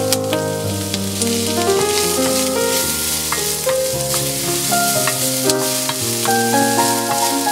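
Chopped raw mango tipped into hot coconut oil in a stainless steel pan, sizzling, then stirred with a wooden spatula with scattered light knocks and scrapes. Background music with sustained notes plays over it.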